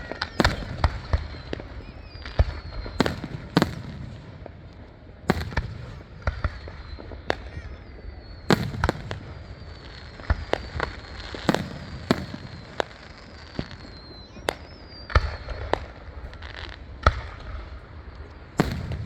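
Fireworks going off: a quick, irregular run of sharp bangs and pops, some much louder than others, with high whistles sliding down in pitch between them.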